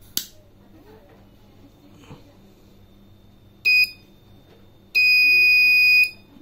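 Piezo buzzer of a gas-leak alarm sounding a short beep and then a longer beep of about a second, a single high steady tone: the MQ2 gas sensor has detected gas from a lighter. A sharp click sounds just after the start.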